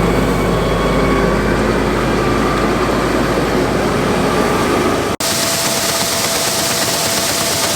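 Heavy farm machinery engine running steadily at a constant pitch. About five seconds in there is an abrupt cut to a different steady machine noise with a constant whine.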